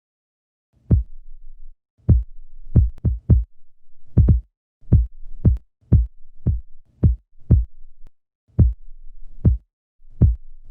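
A series of about fifteen short, deep thumps at uneven spacing, some coming in quick runs of two or three, a sound effect.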